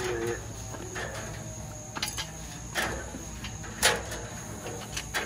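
Several short, sharp clicks and knocks from copper pipe being cut to length and handled, the loudest a little under four seconds in, over a steady background of crickets.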